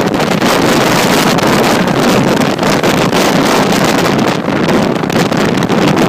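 Strong wind blowing across the microphone: a loud, continuous rush of wind noise that rises and dips slightly with the gusts.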